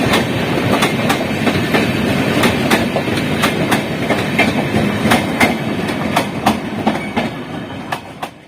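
Wheels of the Sealdah Rajdhani Express passenger train clicking and clacking over rail joints as the train rolls slowly into the station; the sound fades away near the end.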